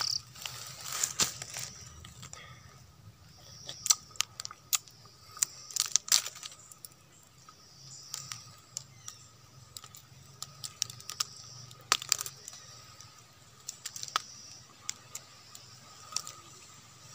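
A stingless bee nest being broken apart by hand: irregular crackles, snaps and tearing clicks as the brittle resin-and-wax honey pots are pulled open, with a few sharper snaps among softer ones.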